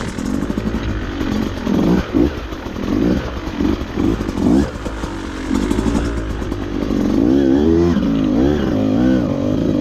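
Beta 200RR's two-stroke single-cylinder engine running under way, its pitch rising and falling again and again as the throttle is worked on and off.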